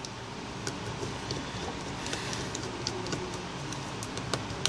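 Faint, scattered clicks and ticks of a small screwdriver working the tiny screws inside an iPhone 4, over a steady background hiss.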